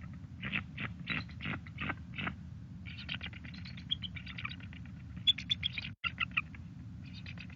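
Bald eagle calling: a string of sharp, high chirps about twice a second, then a fast chittering run of high notes, over a steady low hum.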